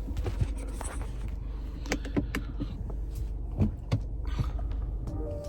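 A car's engine running steadily, heard from inside the cabin, with a few sharp clicks and knocks from something being handled, the loudest pair about three and a half seconds in.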